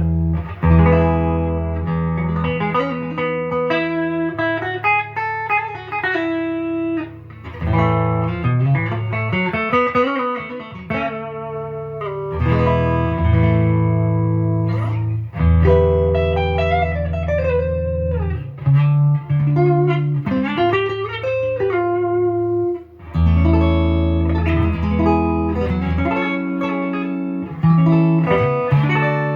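Gibson Les Paul 50s Standard P90 electric guitar played through an amp with the pickup selector in the middle position (both P-90s on), volumes and tones at 10. It plays a run of strummed chords and single-note lines with several string bends.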